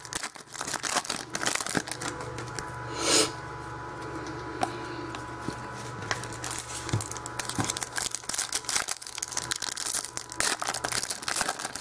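Trading cards and card-pack wrappers being handled: scattered crinkling and rustling, with one louder short rip about three seconds in.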